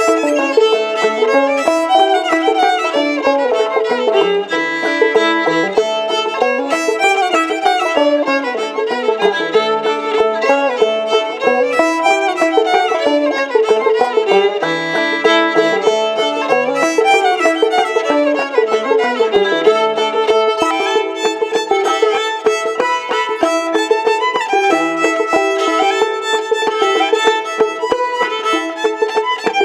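Fiddle and clawhammer banjo playing an old-time Kentucky fiddle tune together: a bowed fiddle melody over a steady, driving rhythm of plucked banjo notes.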